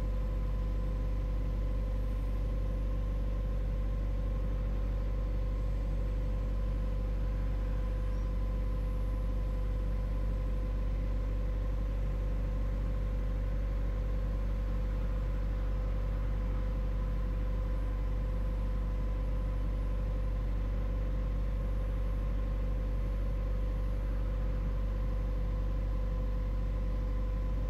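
Steady low machine hum with a constant mid-pitched tone over it, unchanging in level and pitch.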